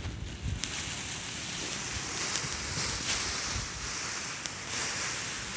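Lightweight paraglider canopy fabric of an Ozone Alpina 4 rustling steadily as the wing is pulled out and spread across grass, with wind buffeting the microphone.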